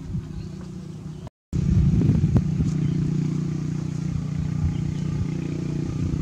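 A motor's steady low hum, with a brief dead cut just over a second in and a few light knocks soon after.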